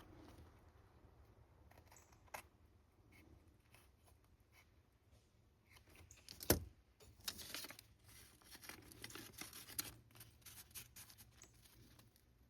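Faint crackling and scraping of paper being worked by hand, with one sharp tap about six and a half seconds in and a denser run of papery crackles just after it.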